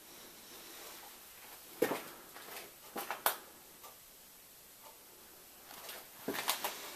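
Scattered light clicks and knocks of handling, one about two seconds in, two about three seconds in and a cluster near the end, over quiet room tone; no machine is running.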